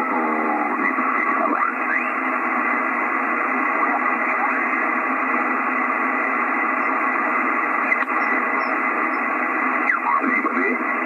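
Icom IC-756PROII HF transceiver receiving 40 m lower sideband while the dial is tuned across the band: steady band hiss, with garbled sideband voices and whistling carriers sliding up and down in pitch as the frequency changes.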